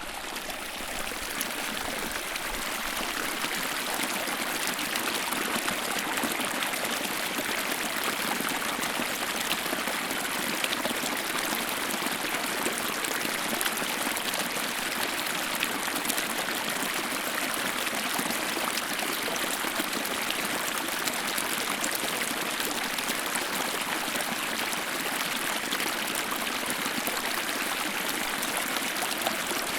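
Small stream of snowmelt runoff flowing, a steady, even rush of water that builds a little over the first few seconds and then holds.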